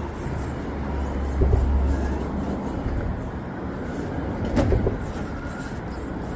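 RC rock crawler's electric motor and geared drivetrain running under load as it tries to climb rock, with tires scrabbling on the stone; a sharp knock about four and a half seconds in.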